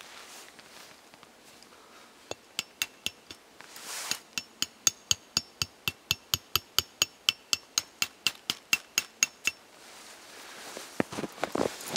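The back of a hatchet hammering a thin metal tent stake in: a steady run of about four quick, ringing metallic taps a second that starts a couple of seconds in and stops a few seconds before the end, followed by softer rustling and handling sounds.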